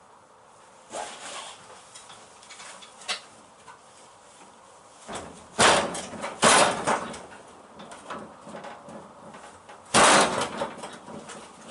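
Short scraping and knocking noises, as of sheet-steel body panels and clamps being handled and fitted: a scrape about a second in, two loud ones around six seconds in and another loud one about ten seconds in, with small clicks between.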